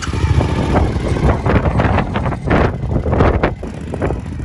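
Suzuki V-Strom motorcycle's V-twin engine running as the bike pulls away over gravel and sand, with wind buffeting the microphone.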